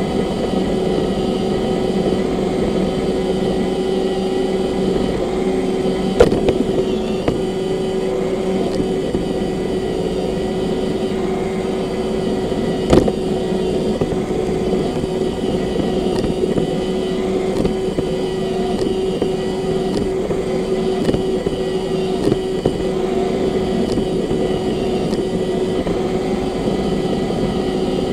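Roomba robot vacuum running, with a steady motor hum and the whir of its brushes. There are two sharp knocks, about six and thirteen seconds in.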